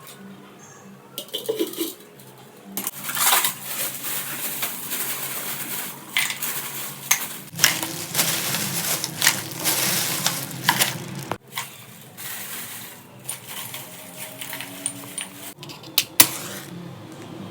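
Metal cookware and utensils clinking, scraping and rattling, with a busier stretch in the middle and a sharp clink near the end.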